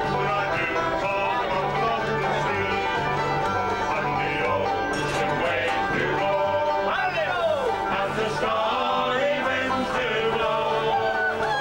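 Folk band playing a lively acoustic tune on banjo and guitars over a steady, repeating bass line.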